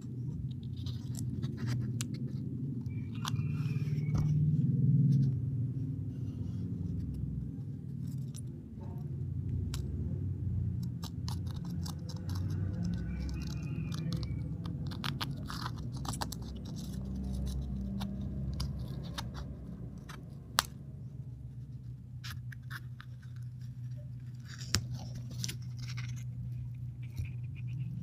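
Turtle eggshell being cracked and peeled away by fingers: small crunching and clicking snaps, with a few sharper cracks in the second half, over a low steady hum.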